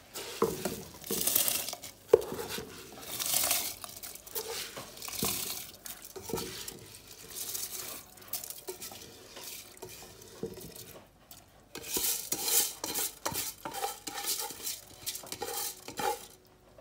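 Washed rice being tipped and scraped out of a metal bowl into a pot of red peas for rice and peas. Irregular rustling scrapes come with sharp clicks of metal against the pot, the sharpest about two seconds in.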